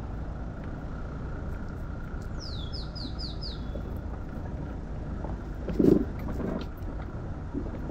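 Low steady rumble of a vehicle moving slowly along a gravel lane. About two and a half seconds in, a bird calls with five quick descending notes. Near six seconds there is a short thump, the loudest sound, with a smaller one just after.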